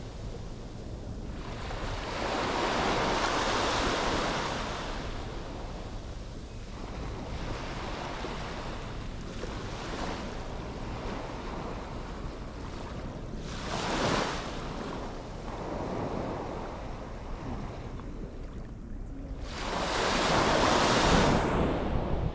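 Sea waves washing onto a beach, swelling and fading in slow surges, the biggest about three seconds in and again near the end, with a shorter one in the middle. Wind rumbles on the microphone underneath.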